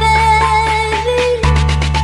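Loud electronic dance music with a heavy, sustained bass and a steady beat, played through a large parade sound system. The bass cuts out for a moment near the middle and comes straight back.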